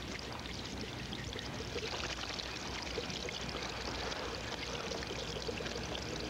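Steady rushing hiss of water, even in level throughout.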